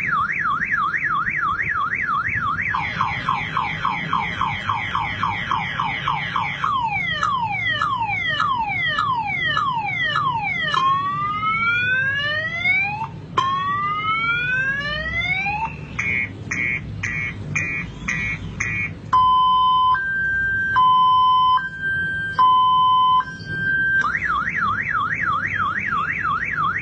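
A multi-tone car alarm siren cycle: a fast rising-and-falling whoop, then a quicker warble, a run of falling chirps, long rising sweeps, rapid pulsing beeps and a high-low two-tone alternation, before the whoop starts again near the end.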